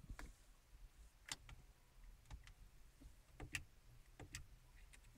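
Faint clicks of buttons being pressed on a Ford Figo's dashboard audio unit, about one press a second.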